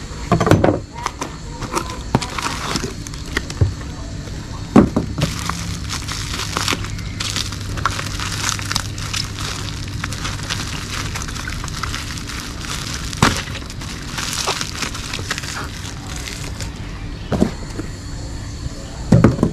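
Cardboard box flaps and crinkly plastic wrapping handled and pulled off a bagged betta fish: irregular crackling and rustling, with a few sharp knocks.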